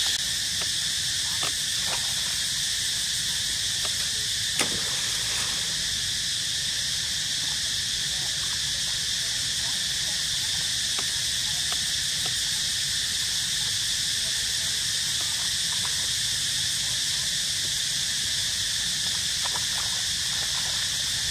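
Steady, unbroken chorus of forest insects, with a few faint clicks and one sharper click about four and a half seconds in.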